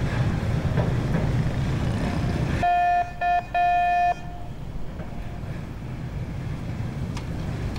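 Steady low rumble, then about two and a half seconds in a horn sounds three toots in quick succession, the third the longest. The rumble drops away as the horn starts, leaving a quieter background.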